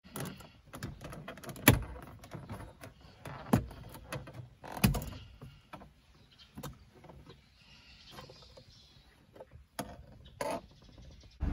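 Plastic retaining clips of a Suzuki Celerio's silver dashboard trim panel snapping loose as the trim is pried off by hand: a series of sharp clicks, the loudest about one and a half seconds in, with plastic rubbing and creaking between them.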